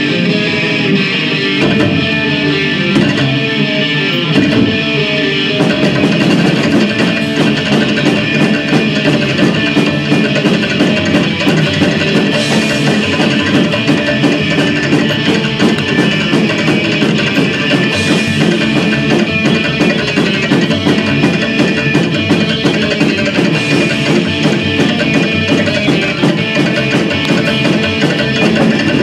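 Live psychobilly band playing an instrumental passage: electric guitar, upright bass and drum kit. The sound is thinner and guitar-led at first, and the full band thickens about five seconds in and carries on with a driving drum beat.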